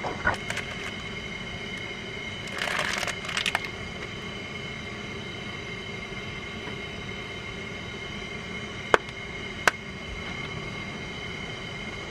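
Propane camp stove burner hissing steadily under a saucepan, with an even high whine. A wooden spoon knocks against the pot near the start, a short shaking rattle comes about three seconds in, and two sharp clicks follow near the end.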